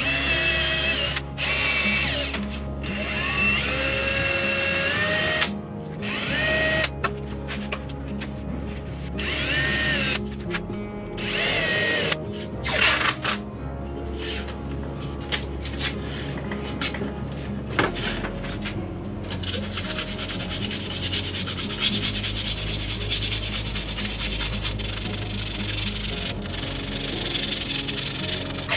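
Cordless drill drilling screw locating holes through a painted plywood panel: several short bursts, the motor whining up at the start of each. After that, in the second half, comes a steadier rasping and rubbing, the sound of masking tape being pulled off the roll and pressed down onto the panel.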